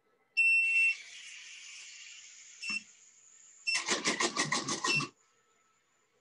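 Electronic beeps: a long high beep about half a second in, then a faint hiss and a short beep, then a quick run of about ten beeping pulses lasting about a second and a half.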